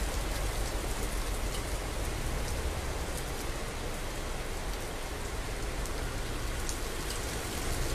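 Heavy monsoon rain pouring steadily onto a wet road and pavement, with scattered sharp ticks of nearby drops.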